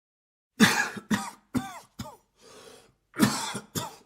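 A man coughing: a fit of four quick, harsh coughs starting about half a second in, a short breath, then another fit of coughs near the end.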